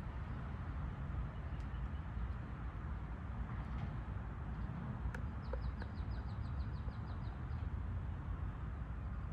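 Park ambience: a steady low background rumble, with a small bird giving a rapid high trill of about a dozen notes a little past the middle.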